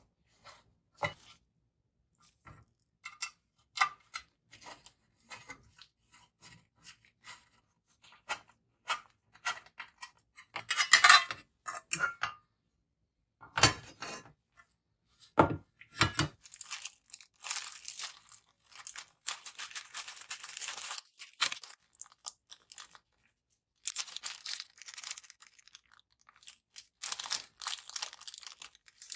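Packaging and small parts being handled by hand: scattered clicks and taps, a loud rustle about eleven seconds in, a few knocks, then long stretches of rustling plastic.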